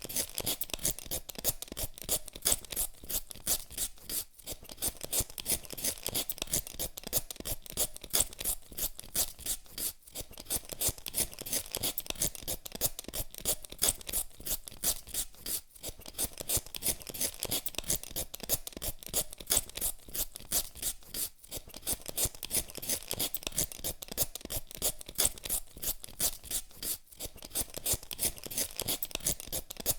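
Hand peeler scraping the skin off a potato in quick, regular strokes, with a brief pause every five or six seconds.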